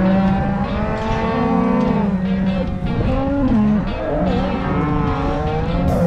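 A herd of cattle mooing, several long calls overlapping at once over a steady low rumble.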